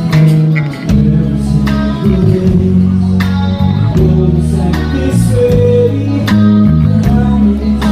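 Live band music at a slow tempo: a drum kit with kick, snare and cymbal hits over sustained bass and guitar, with a voice singing.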